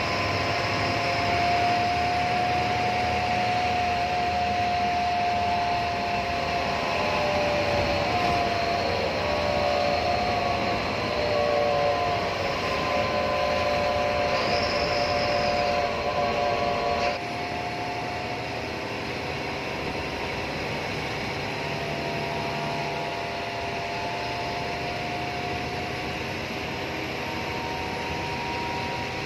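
A bus running on the road, heard from inside: steady engine and road noise, with whining tones that waver in pitch through the first half. The sound drops suddenly to a lower, steadier noise about seventeen seconds in.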